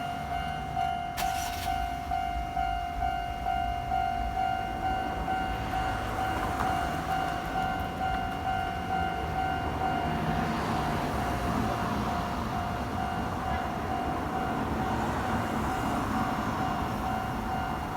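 Japanese level-crossing alarm on the Kintetsu Nagano Line ringing steadily with its repeating electronic bell, while a train passes, its running noise growing from about ten seconds in.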